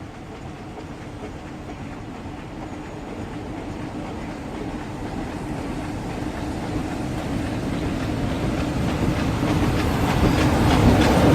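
Class 47 diesel-electric locomotive approaching, its engine note growing steadily louder. Wheel clicks over the rail joints start near the end as it draws close.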